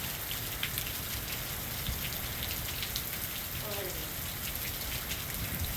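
Heavy hurricane rain pouring down: a steady hiss with scattered sharp taps of drops.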